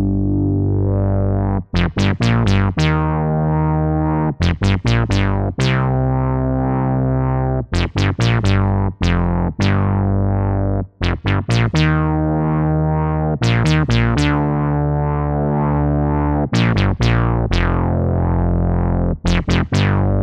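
GForce Oddity 3, a software emulation of the ARP Odyssey synthesizer, playing a bass-heavy patch. Long low notes alternate with quick runs of short notes, and each note starts bright, its filter then closing quickly.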